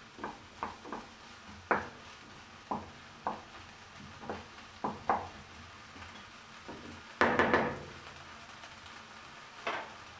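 Wooden spatula stirring chopped onions frying in a frying pan, knocking and scraping against the pan at uneven intervals. About seven seconds in there is a louder clatter of several quick knocks, and one more knock comes near the end.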